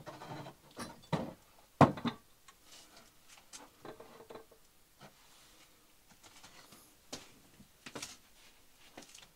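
A glazed ceramic rumtopf crock being set down on a wooden pantry shelf among glass jars: a few knocks and clinks, the loudest about two seconds in, then lighter scattered clicks.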